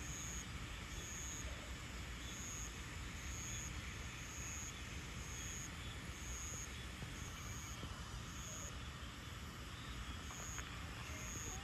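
Steady outdoor background noise with a low rumble and hiss, and a short high-pitched beep that repeats about every three-quarters of a second.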